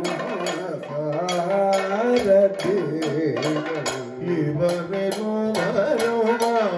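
Kathakali music: a male voice singing a padam in a winding, ornamented melody over a steady run of percussion strokes from the maddalam drum and cymbals.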